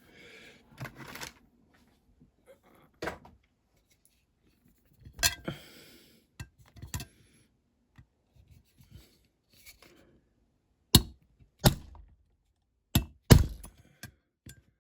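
Hammer striking a centre punch on the rivet of a diecast toy van: scattered small knocks and handling noises, then four sharp strikes near the end.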